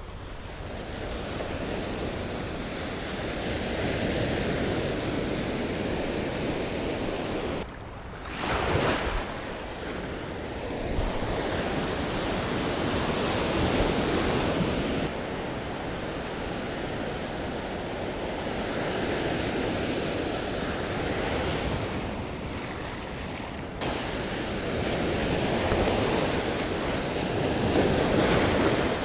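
Ocean surf breaking and washing up the beach, the wash swelling and easing every few seconds and breaking off abruptly a few times.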